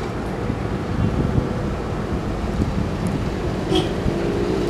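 Steady wind-like rumble on the microphone. A faint low drone comes in near the end, and there is a short high chirp about four seconds in.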